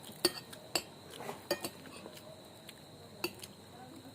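Spoon and fork clinking against a dinner plate during a meal: a handful of light, scattered clinks.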